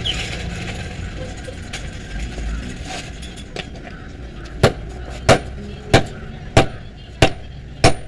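Sledgehammer striking a red-hot knife blade on a steel anvil, sharp ringing blows at a steady pace of about one and a half a second, starting about halfway through. Before them a steady rushing noise slowly fades.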